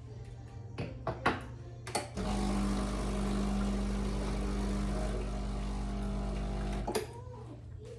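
A few clicks and knocks, then a small electric appliance motor hums steadily for about five seconds, starting suddenly and cutting off abruptly.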